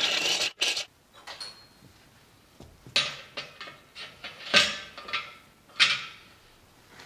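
A cordless drill boring through steel runs at high speed and stops sharply about half a second in. Then come a series of sharp metal clinks and knocks, loudest a little past the middle and near the end, as a steel hitch pin and bracket are handled and set onto square steel tubing.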